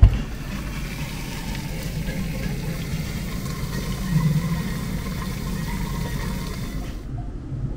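Egg-steaming cabinet running: a steady hiss of steam over a low hum, which cuts off shortly before the end.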